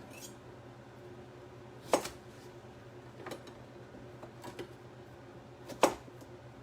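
Kitchen knife chopping small cucumbers on a cutting board: a few separate sharp knocks, the loudest about two seconds in and again near the end, over a steady low hum.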